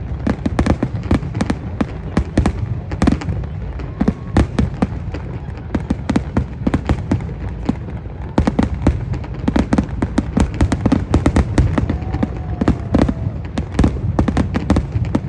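Fireworks going off: a dense, irregular run of sharp cracks and pops, several a second, over a steady low rumble.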